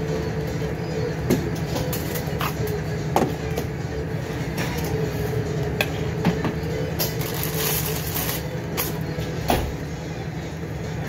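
Steady low hum of commercial kitchen ventilation, with scattered clicks and light knocks from a spoon and utensils on the foil-lined tray.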